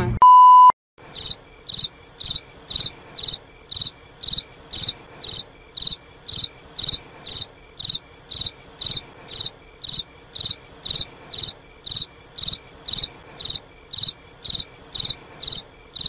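A short electronic beep, then a cricket chirping steadily and evenly, about two chirps a second.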